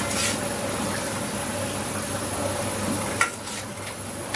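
Metal ladle stirring and scraping in a large aluminium stock pot, with one sharp metal clank about three seconds in, over a steady background hum.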